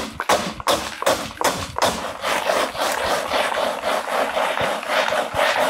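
Rocks clattering and grinding in a plastic bucket as a chainsaw bar and chain are churned up and down through them, in a quick, steady rhythm of strokes.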